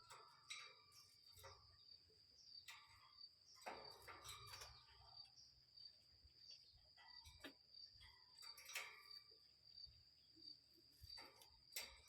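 Faint forest ambience: a steady high-pitched insect trill, with scattered short bird chirps and clicks.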